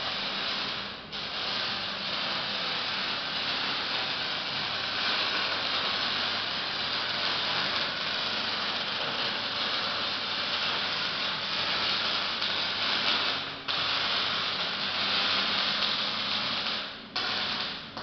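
Welding arc crackling and hissing steadily in long runs, broken off briefly about a second in, again after about thirteen seconds and near the end.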